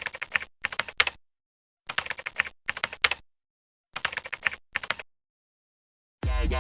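Keyboard typing sound effect: three pairs of quick runs of key clicks, with dead silence between them. Music starts just before the end.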